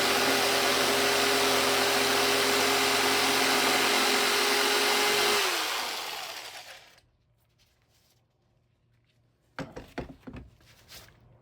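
Electric jigsaw cutting a wooden board at a steady speed, then switched off about five seconds in, its motor winding down with a falling whine. A few short knocks follow near the end.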